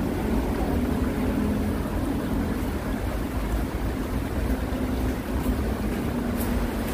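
Steady outdoor background rumble with a faint, even hum, without any distinct events.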